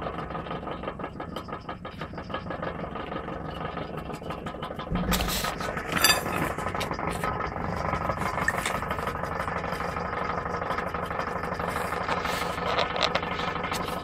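Refrigerator compressor, repurposed as an air compressor, running steadily: a continuous hum with a fine rattle as it pumps air into a converted gas-cylinder receiver tank. A thump and a sharp click come about five to six seconds in.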